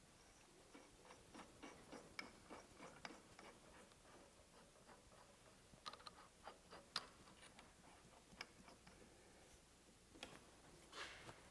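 Near silence broken by faint, irregular small clicks and taps from handling tools and parts at a milling machine, a little denser around six to seven seconds in, with a short soft rustle near the end.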